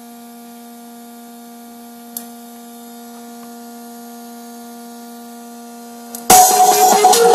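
A scooter's add-on stereo speaker giving a steady electrical hum with a few even overtones while no track plays, with one short click about two seconds in. Loud guitar music starts suddenly near the end.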